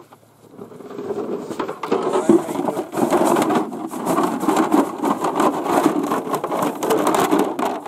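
Rustling and scraping of hunting gear, such as goose decoys and a camouflage blind, being handled and carried through grass, with many small crackles. It starts about a second in and goes on steadily.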